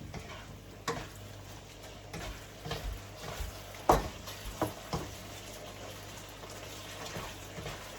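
A pot of Bicol Express simmering in coconut milk, sizzling steadily, while a utensil stirs it and knocks against the pot a few times; the loudest knock is about four seconds in.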